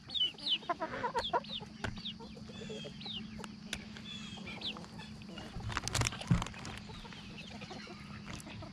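Chickens clucking and giving short, high, quick calls, most of them in the first half, while they feed; a knock about six seconds in.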